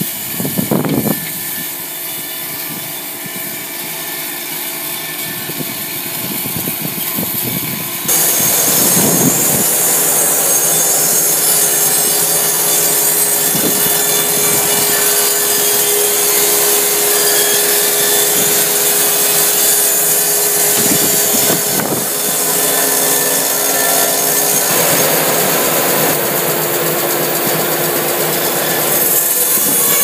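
Electric mobile band sawmill's band saw blade cutting lengthwise through a log: a steady rasping hiss of the blade in the wood over the hum of the machine. It becomes louder and brighter about eight seconds in and then holds steady.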